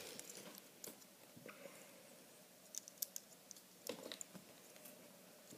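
Near silence with a few faint, scattered clicks of small plastic Lego pieces being handled and pressed together, mostly around the middle.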